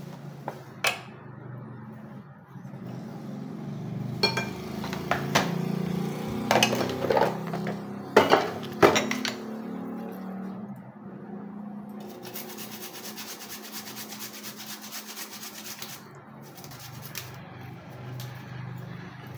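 A spoon tapping and clinking against plastic spice cups and a ceramic bowl as spice powders are spooned onto raw chicken, with a cluster of sharp knocks about four to nine seconds in. Later comes a steady hiss for a few seconds.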